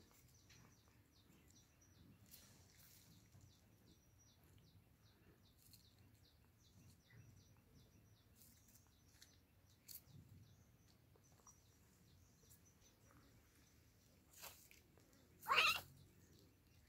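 Quiet background with faint, rapidly repeated high chirping, and one brief, much louder sound near the end.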